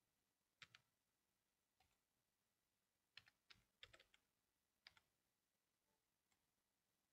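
Faint computer keyboard keystrokes: a few scattered taps, with a quick run of several keys about three to four seconds in.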